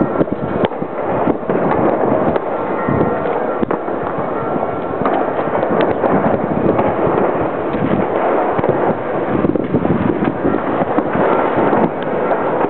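Many sharp bangs and pops going off in quick, irregular succession over a continuous loud din.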